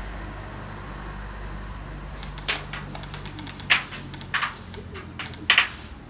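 Airsoft BB guns firing: sharp cracks, single and in quick pairs, scattered irregularly, starting about two seconds in.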